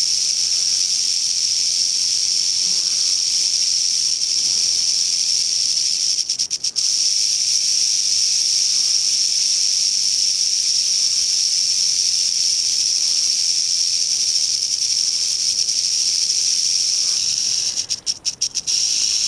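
Western rattlesnake rattling its tail: a steady, high, dry buzz that breaks off for a moment about six seconds in and again near the end. It is the snake's defensive warning.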